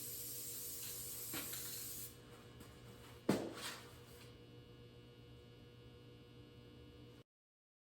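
Steady spraying hiss that stops abruptly about two seconds in, then a single sharp knock about a second later over a low hum.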